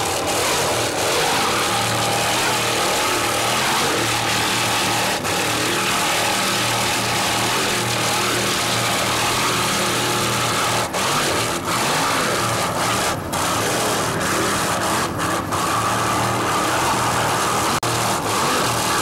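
Offshore racing powerboat's Mercury inboard engines running hard at speed, a steady drone under a thick rush of wind and water noise. The sound cuts out briefly a few times in the second half.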